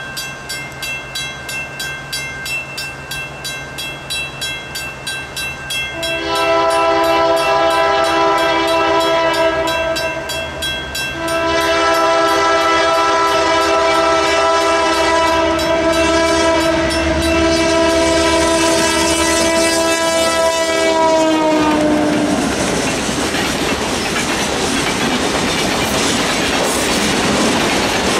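Diesel locomotive horn sounding at a grade crossing: a blast of about four seconds, a short break, then a long blast of about ten seconds that drops in pitch as the locomotives pass. A crossing bell rings under it, and after the horn the freight train's hopper cars rumble and clack past over the rails.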